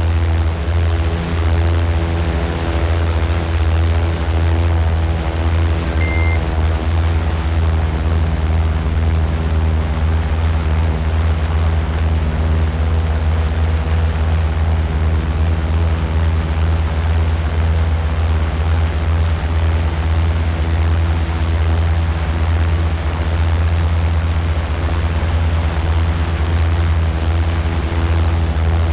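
Multirotor drone's motors and propellers running steadily in hover or flight, picked up by a camera mounted on the drone: a strong low hum with a few steady pitched tones over a hiss of rotor wash. A short high beep sounds once about six seconds in.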